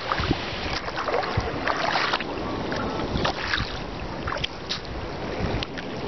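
Small sea waves lapping and swishing over a shallow shell-and-sand shore, with wind rumbling on the microphone.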